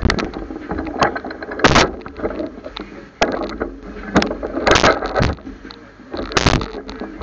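Fat bike ride over a rough street: irregular knocks and rattles from the bike and its mounted camera jolting over bumps, with street traffic noise underneath.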